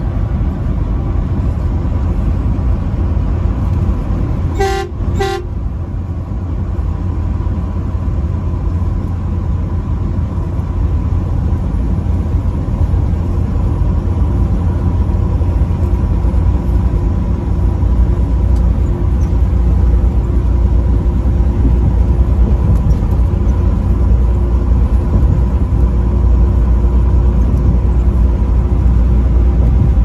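Truck cab on the highway: a steady low drone of engine and road noise, with two short blasts of the truck's horn about five seconds in.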